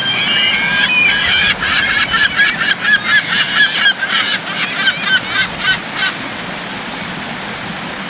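Gulls calling in a rapid series of short, repeated cries, about three or four a second, stopping about six seconds in, over the steady rush of a shallow rocky stream.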